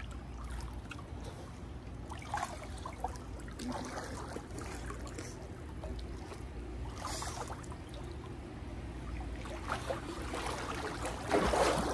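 Pool water sloshing and lapping as people wade through it, with scattered small splashes and a louder splash near the end.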